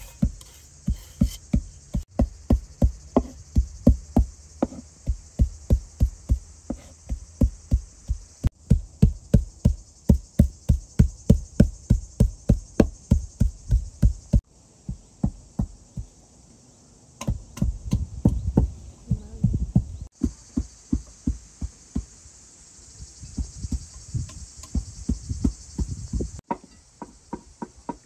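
Knife chopping on a wooden cutting board: steady, sharp knocks about three a second, with a few short breaks. A faint steady high hiss sits behind them.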